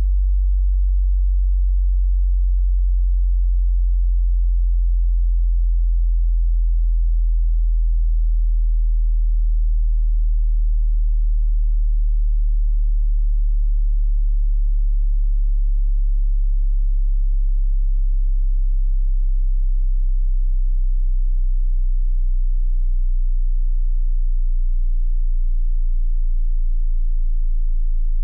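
Pure sine test tone of a high-to-low hearing-test sweep, now at a very low bass pitch below about 60 Hz, gliding slowly downward at a steady level.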